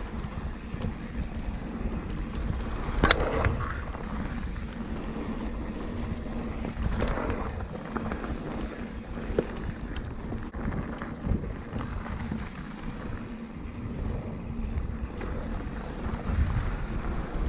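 Mountain bike riding fast down dirt singletrack: wind rushing over the camera microphone, with the bike's rolling rumble and a few sharp knocks and rattles, the loudest about three seconds in.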